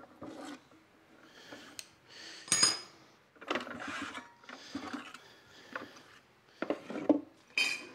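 Hand tools being lifted out of a wooden tool tote and set down on a wooden workbench: irregular clinks, knocks and scrapes of steel and wood, with a short metallic ring about two and a half seconds in and another near the end.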